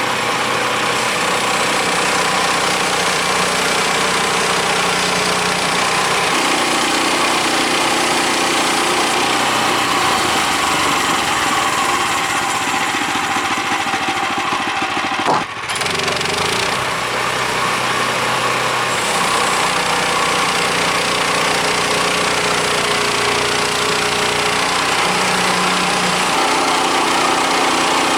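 Woodland Mills HM126 portable bandsaw mill's gas engine running steadily while the blade cuts through a wet cottonwood log, its pitch shifting a little as the load changes. A single sharp knock about halfway through.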